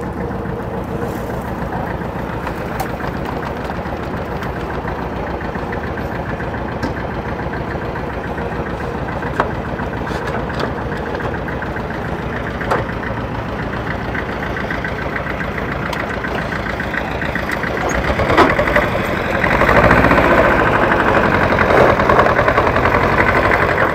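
Boat engine running steadily with an even beat, growing louder in the last few seconds.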